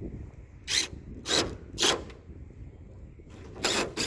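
Power drill driving the bolts in a trailer's wooden floorboards in short bursts: three quick bursts about half a second apart, then two more near the end.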